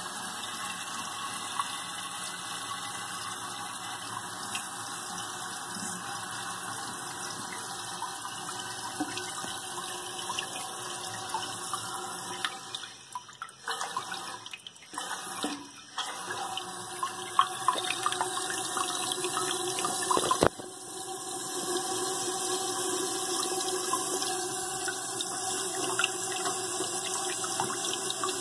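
1977 Kohler K-9262 toilet ballcock running, water hissing and spraying into the tank as it refills, with splashing. The rush drops away briefly in the middle, comes back louder with splashes, and there is one sharp knock about twenty seconds in.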